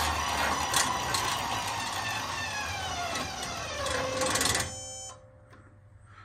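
AC electric motor fed by a variable frequency drive, running a roller-chain and sprocket drive to a railway truck's axles: chains clattering under a whine that falls in pitch as the motor winds down. It stops about four and a half seconds in, leaving a faint steady hum.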